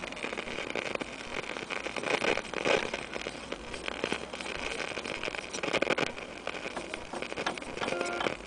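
Vintage Bush valve radio giving a steady hiss of static with irregular crackles, no station coming through.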